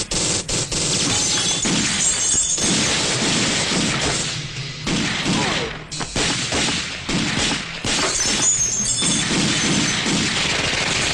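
Movie shootout sound effects: repeated pistol shots mixed with glass shattering and crashing, dense and loud, with a couple of brief lulls.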